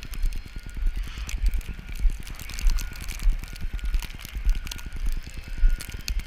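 Blizzard wind buffeting the camera's microphone: a low rumble that rises and falls in irregular gusts, with scattered crackles over faint street noise.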